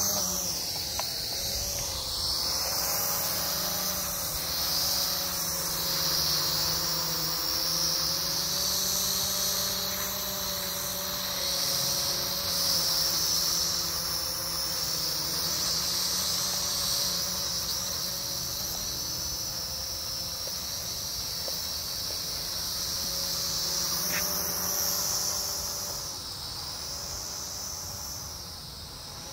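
Small toy quadcopter's motors and propellers in flight: a steady high buzzing whine whose pitch wavers up and down as the drone manoeuvres. It grows fainter over the last few seconds as the drone climbs away.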